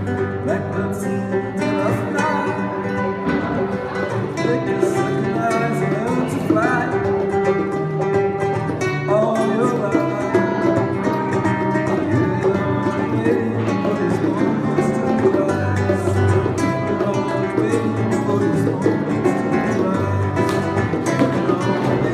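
Live acoustic guitar music played with hand drums (bongos and congas), plucked and strummed at a steady rhythm.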